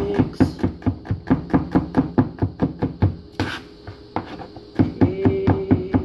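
Kitchen knife chopping garlic on a cutting board: rapid, even knocks about five a second, easing briefly about four seconds in.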